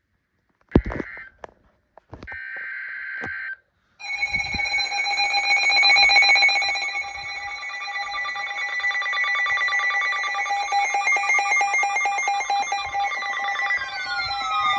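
Weather radio alert data tones in short bursts, then from about four seconds in several weather radio receivers' alarms sounding at once: a loud, dense mix of steady and rapidly beeping tones, with falling tones sliding in near the end. The alarms signal a newly received warning.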